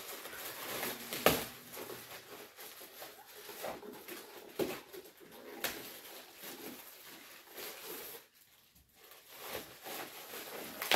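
Plastic packaging being torn open and handled: irregular rustling and crinkling with sharp crackles, pausing briefly about eight seconds in.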